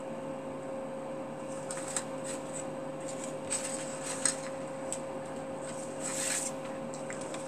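Paper pattern pieces and fabric being handled and slid over a cutting mat: scattered soft rustles and light taps, with a longer rustle about six seconds in. A steady faint hum runs underneath.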